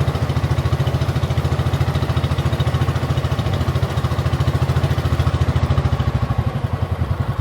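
Small boat engine running steadily with a rapid, even throb.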